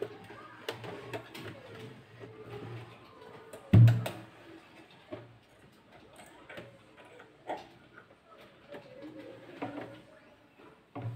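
Usha Wonder Stitch electric sewing machine stitching fabric in short runs, its motor humming and needle clicking in bursts. There is one loud knock about four seconds in.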